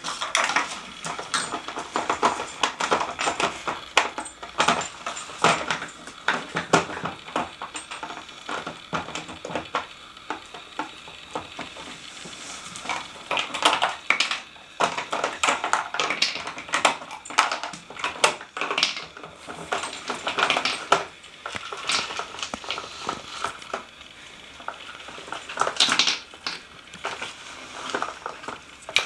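Hard plastic dog treat puzzle pieces clattering and clicking on a wooden floor as a dog noses and paws at the puzzle board, knocking its lids and bone-shaped pegs about. The knocking is irregular, with two brief lulls.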